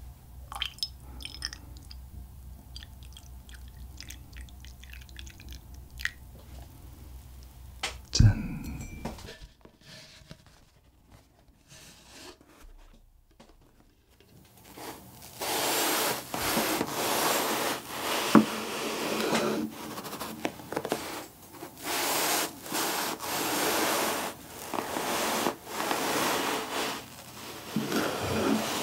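Hand-drip coffee poured from a glass carafe into a ceramic mug. From about halfway on, a long stretch of rustling in uneven strokes as a roll of pressed cotton candy is handled on a wooden board, with a kitchen knife starting to slice into it near the end.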